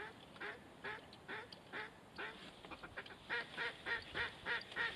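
A steady series of duck quacks, about two a second, quickening to about three a second and growing louder about three seconds in.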